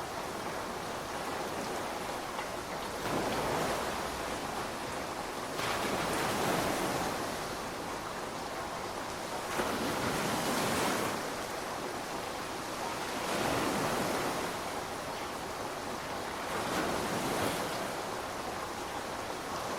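Steady rain hiss that swells and eases every three to four seconds.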